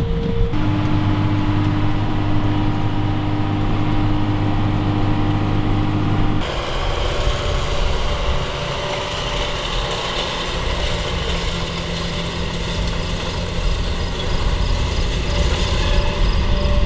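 Tractor engine running steadily, its steady hum changing abruptly twice as the sound jumps from one stretch of running to another.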